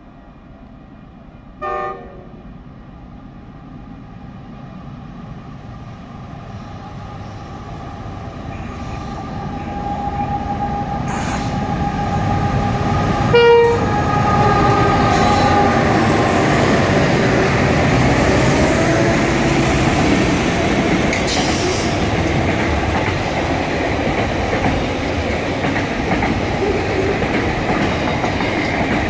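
Freight train of diesel locomotives passing close by: a short horn blast about two seconds in and a louder one as the lead locomotive draws level about halfway through. Engine noise builds as the locomotives approach, then the wagons keep up a steady rumble and clatter as they roll past.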